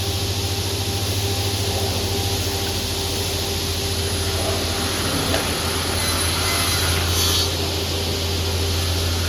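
Automatic picture-frame cutting machine's saw blade running with a steady motor hum, biting into oak moulding with a brighter hiss for about a second and a half, starting around six seconds in.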